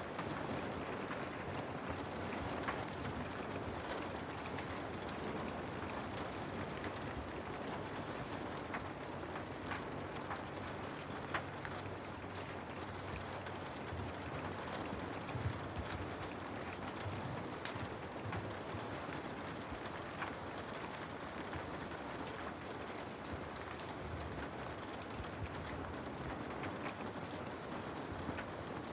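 Steady rain falling on a window, a continuous hiss with many individual drops ticking sharply against the glass.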